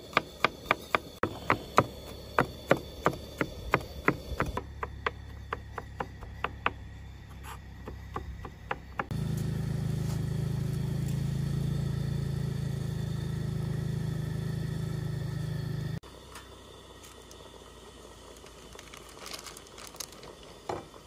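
A knife chopping garlic on a plastic cutting board, with quick, even taps about three or four a second. About nine seconds in, this gives way to the steady low rumble of a camp stove burner under a pot of boiling water, which cuts off suddenly a few seconds later.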